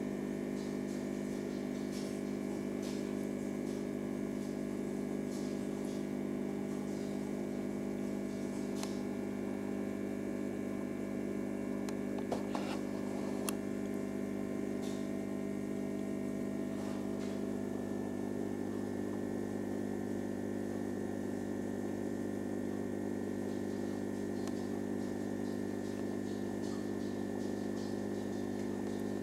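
Steady electrical hum of aquarium equipment, a stack of several low held tones, with a few faint clicks about twelve seconds in.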